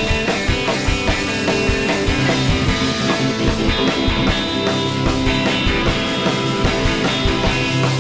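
Rock band playing live, with drum kit and guitars keeping a steady beat.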